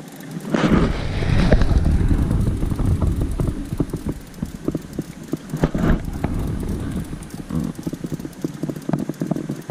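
Handling noise from a camera being moved about in a small boat: a sudden low rumble with many irregular knocks and clicks, loudest in the first few seconds, then scattered knocks.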